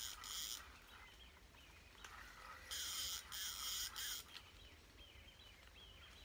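Fishing reel whirring in short bursts as a hooked tench is played: a brief burst at the start, then a longer broken run around three seconds in. Faint birdsong in the background.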